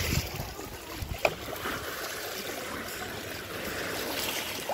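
Shallow sea water lapping and sloshing over a pebble shore, with one sharp click about a second in.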